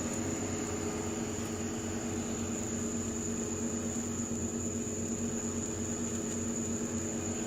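Steady mechanical hum of an idling vehicle, with several low steady tones and a thin high whine above them, unchanging throughout.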